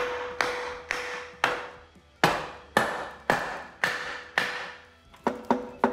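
Hammer blows on a wooden block held against a Toyota 20R's cast cylinder head, about two a second, each ringing out after the strike. This is the head being knocked loose from the engine block once its bolts are out.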